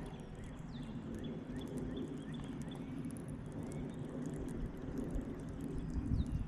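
Outdoor ambience: a steady low rumble with faint, short bird chirps scattered over it.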